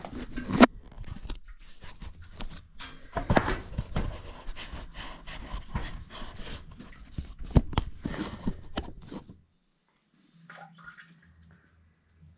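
Handling noise: irregular knocks, clicks and rustling as the GoPro camera is picked up and moved in close, with one sharp loud click about half a second in. It stops about nine and a half seconds in, leaving only a few faint sounds.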